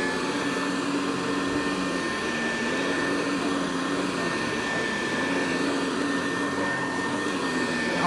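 Hoover Deluxe Model 66 upright vacuum cleaner with a CWP brushroll running as it is pushed over carpet: a steady motor whine with a constant high tone and a lower hum whose pitch sags slightly now and then.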